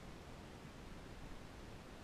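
Faint, steady background hiss with no distinct sounds.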